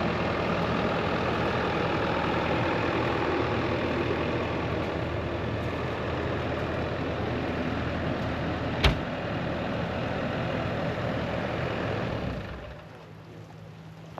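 Bobcat E55 compact excavator's diesel engine running steadily, with one sharp click a little past the middle. The engine sound drops away near the end.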